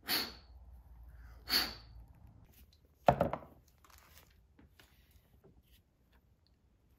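Pliers working a filter out of a fuel injector: two short metallic scrapes about a second and a half apart, then a single sharp knock, followed by a few faint ticks.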